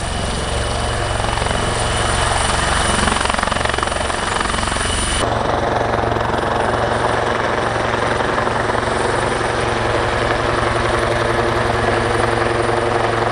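Military helicopter running loud and steady, turbine and rotor noise together, with a high whine that cuts off abruptly about five seconds in.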